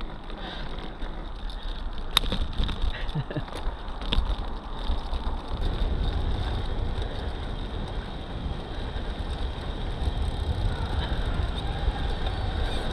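Wind buffeting the microphone and tyre rumble from a recumbent bicycle rolling along the road, getting a little louder towards the end, with a few sharp clicks about two and four seconds in.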